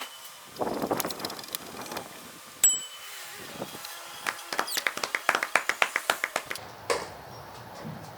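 Hand scraper rasping over old paint on a wooden window sash, with a quick run of strokes in the second half. A sharp metallic ping rings out about three seconds in.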